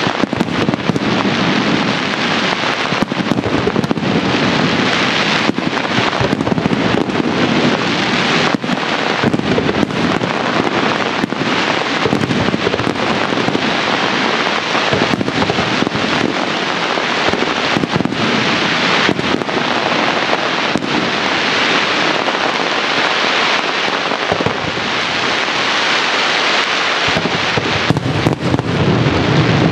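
Fireworks display: a dense, unbroken rattle of rapid bangs and crackles, with many sharp reports standing out. Deeper booms fill in near the end.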